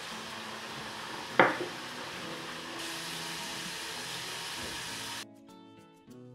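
Steady sizzle of potatoes deep-frying in hot oil, with one sharp knock about a second and a half in. About five seconds in the sizzle cuts off suddenly and soft background music takes over.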